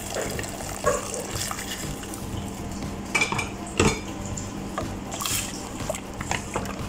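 A metal ladle stirring a liquid broth in a stainless steel pot, knocking and clinking against the pot several times, the loudest clink about four seconds in, with a steady low hum underneath.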